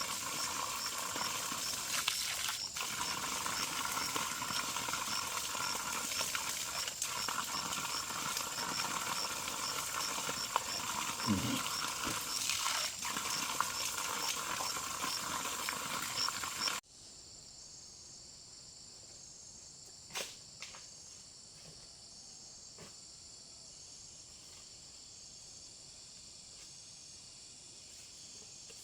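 Insects chirping and buzzing in dense chorus, with a steady high pulsing chirp. About two-thirds of the way through, the sound drops abruptly to a quieter bed where a single cricket-like chirp repeats regularly, with a few faint clicks.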